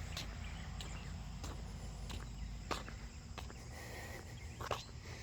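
Outdoor garden ambience: a steady low rumble with scattered light clicks and rustles, about one or two a second, like footsteps over the ground, and a faint brief high tone about four seconds in.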